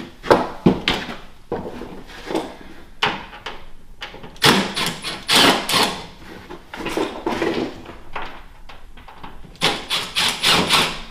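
Cordless power driver backing out the screws that hold an electric fireplace's glass cover, in two short runs about midway and near the end. Single knocks and clatter from handling the tool and the cover come in between.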